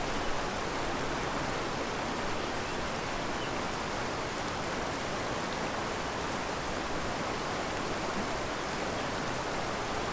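Steady rushing of a mountain creek's flowing water, an even wash with no distinct splashes.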